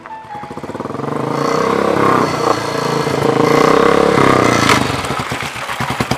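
A motorcycle rides up close and slows down. Its engine grows louder as it approaches, then settles into an even, pulsing beat near the end as it comes to a stop.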